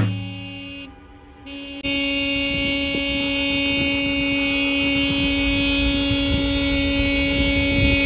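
A drum beat dies away, then from about two seconds in a vehicle horn sounds one long steady blast of about six seconds over low road and engine rumble.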